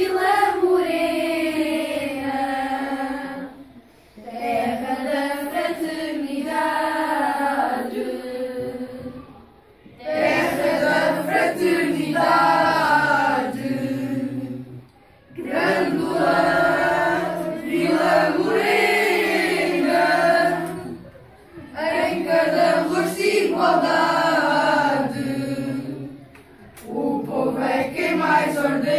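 A group of schoolchildren singing together in unison. The song comes in phrases of about five seconds, with short pauses for breath between them.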